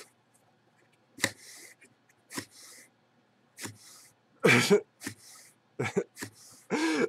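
Cardboard mailer box being opened by hand: a string of short scrapes and knocks about once a second as the lid and flaps are pulled, some followed by a brief rustle. A couple of them carry a short creak, the loudest about two-thirds of the way in and near the end.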